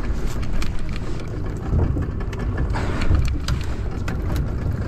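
Steady low rumble and noise of a small fishing boat at sea, with wind buffeting the microphone and scattered sharp clicks and knocks.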